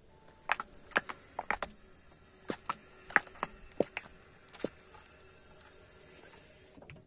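Car tyre rolling over plastic toothpaste tubes on gravel, crushing them: a dozen or so sharp cracks and pops from about half a second in until about four and a half seconds, as the tubes burst and the stones crunch under the tread.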